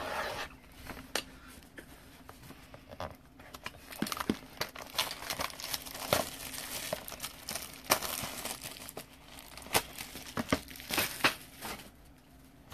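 Plastic shrink wrap crinkling and tearing as it is stripped off a sealed box of trading cards, with sharp clicks and taps as the cardboard box is handled.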